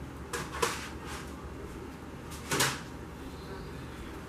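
A few short clatters and rustles of kitchen items being handled on a counter, the loudest about two and a half seconds in, over a steady low hum.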